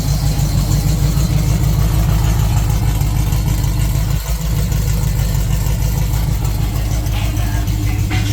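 AMC 304 V8 of a 1976 Jeep CJ7, fitted with long-tube headers, idling steadily at operating temperature, with a brief dip about four seconds in.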